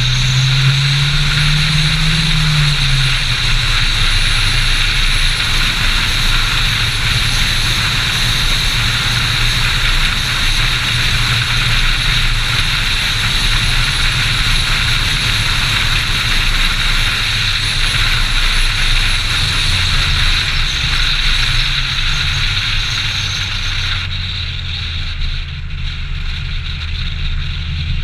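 Volvo 700/900-series sedan driving at road speed: a steady engine hum under a loud, even rush of wind and tyre noise. The engine note climbs for the first three seconds and then drops back. About 24 seconds in, the rushing eases off as the car slows.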